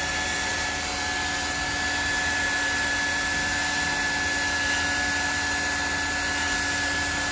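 Hot-air plastic welding gun blowing steadily, an even rush of air with a constant whine from its blower, while polypropylene (PP) welding rod is melted into a plastic tank seam.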